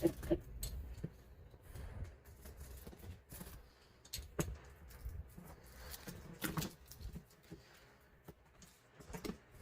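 Scattered light clicks and knocks, a few seconds apart, over a faint low hum.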